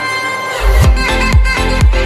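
Electronic dance background music: a heavy bass and kick drum come in about half a second in, beating about twice a second under a synth melody.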